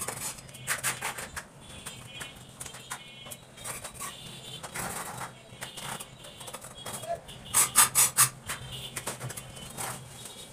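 Scattered knocks and taps from work on a plastic bathroom door and its frame, with a quick run of four loud strikes about two-thirds of the way through.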